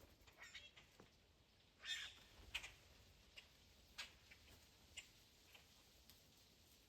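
Faint bird calls: scattered short, sharp chips, about one a second, over near silence.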